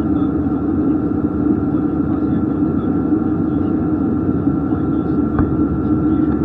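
Steady drone and airflow noise inside the cabin of an Airbus A320 in flight, with a thin steady tone above it. A faint click about five seconds in.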